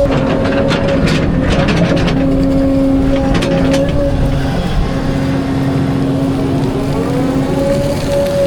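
Volvo EC220 excavator's diesel engine and hydraulics running under load, a steady drone whose pitch dips and rises again near the end. A run of sharp clanks and scrapes in the first few seconds comes from the bucket working broken rock.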